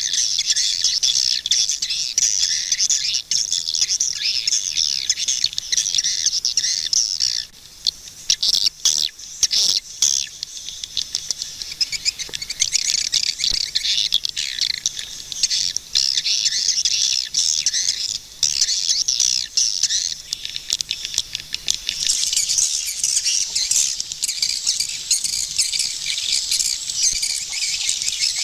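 Swiftlets calling: a dense, continuous high-pitched chirping twitter. It breaks off for a few seconds near the middle, leaving only a few scattered clicks, then resumes, fuller toward the end.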